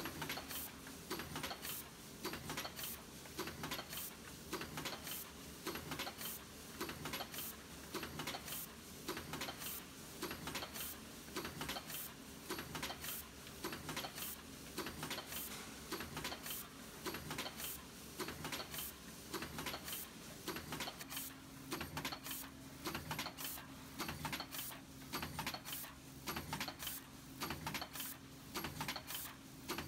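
Aluminium foil container press with a two-cavity smooth-wall container mould, cycling continuously as it stamps trays from foil strip. It makes repeated mechanical clacks in a steady rhythm over a constant machine hum.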